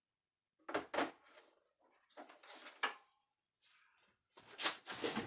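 Parts being rummaged through and handled: three short clusters of clattering and rustling, the first about a second in.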